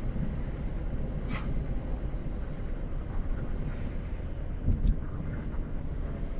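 Steady low rumble of road and engine noise heard inside a moving car's cabin, with a brief hiss about a second in and a short thump near the end.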